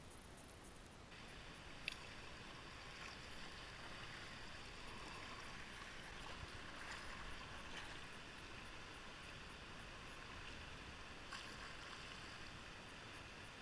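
River water rushing and gurgling past an inflatable kayak riding a current, with a few short sharp ticks, the clearest about two seconds in.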